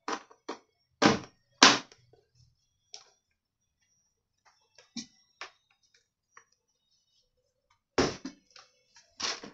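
Hard plastic knocks and clacks of an Imusa air fryer's upper housing being pushed and worked down onto its base to seat it: three sharp knocks in the first two seconds, a few light taps in the middle, and a quick run of clacks near the end.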